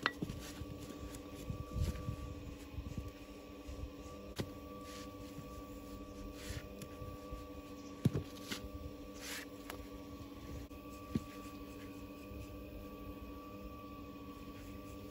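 Stonemason's hand tools working mortar into the joints of a stone wall: a few sharp taps and soft scrapes over a steady hum.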